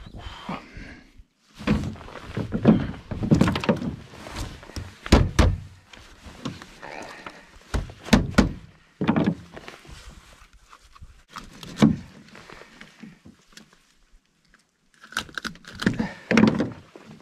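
Irregular thunks and knocks against a small boat's hull, made while a gill net and its catch are handled aboard. They come in clusters with short quieter gaps, the heaviest blows in the first few seconds and about eight seconds in.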